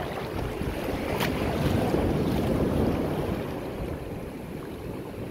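Shallow ocean water sloshing and waves washing around a microphone held just above the surface, with wind buffeting the microphone. The wash swells about two seconds in and eases off toward the end.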